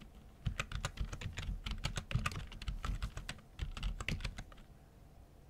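Typing on a computer keyboard: a quick run of keystroke clicks that starts about half a second in and stops about a second before the end.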